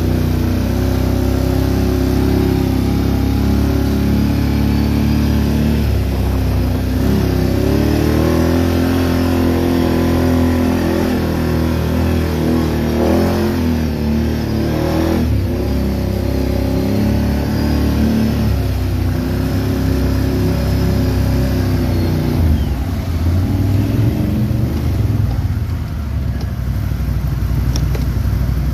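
Off-road vehicle's engine heard close up from on board, running continuously and revving up and down with the throttle as it works along a rutted dirt trail; the pitch swings up and down most strongly around the middle.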